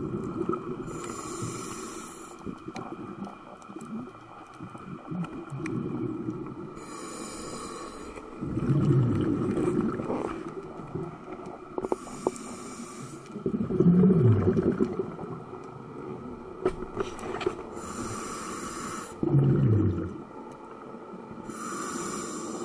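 Scuba diver breathing through a regulator underwater: a short hiss on each inhale, then a low rumble of exhaled bubbles, about five breaths, one every five seconds or so.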